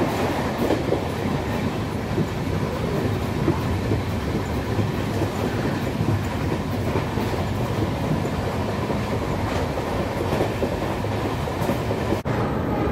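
Express passenger train coach running fast, its steel wheels rumbling and clattering over the rails, heard from an open coach door.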